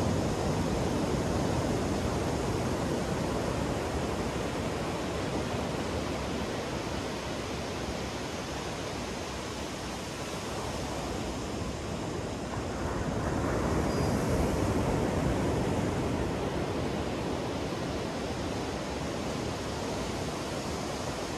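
Ocean surf breaking and washing up a sandy beach: a steady rush of waves that eases off towards the middle and swells again a little after halfway.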